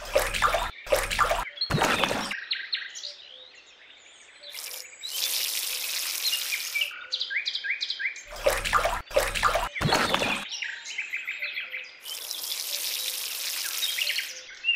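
Small birds chirping steadily, with water poured out of a small cup twice, each pour a steady rushing lasting about two seconds (around five and again around twelve seconds in). Short loud bursts come at the start and again around eight to ten seconds in.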